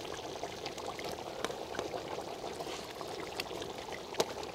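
Lobster curry simmering in a large pot, a steady bubbling with scattered small pops, and one sharper click near the end.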